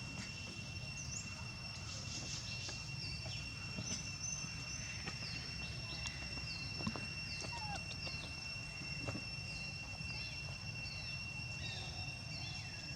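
Outdoor rural ambience: a steady high-pitched drone with short, high, falling chirps repeating about once a second over a low background rumble.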